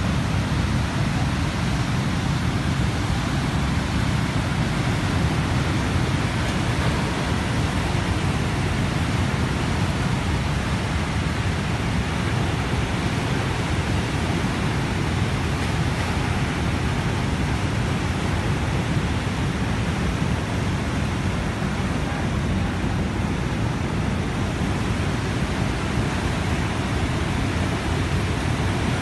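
Muddy floodwater of a swollen river pouring over a waterfall: a steady, loud rush of water with a deep rumble underneath.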